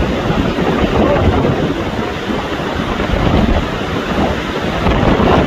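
Hurricane-force wind blowing across the microphone, a loud, steady rush with low buffeting, with heavy surf underneath.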